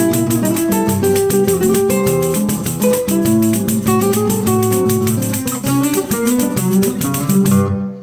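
Two classical guitars and a pandeiro playing samba, the pandeiro's jingles keeping a quick, even beat under the plucked guitar lines. The music ends on a final chord about seven and a half seconds in, which rings and fades out.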